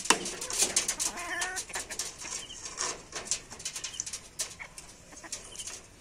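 Chickens pecking at mango pieces in a wire cage: a run of sharp, irregular taps of beaks against the fruit and wire mesh, the loudest just at the start, with a short clucking call about a second and a half in.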